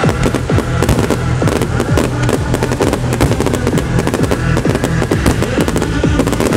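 Loud trance music with a heavy beat over the show's loudspeakers, mixed with rapid, dense pops and bangs of fireworks bursting.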